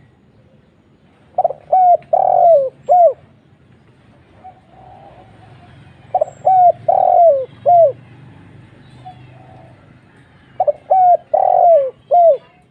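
Spotted dove (tekukur) cooing: three phrases, each of four low notes with a longer third note, about every four and a half seconds.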